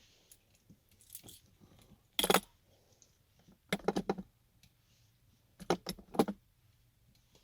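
Small hard objects clinking and rattling as they are handled, in three short bursts about two, four and six seconds in.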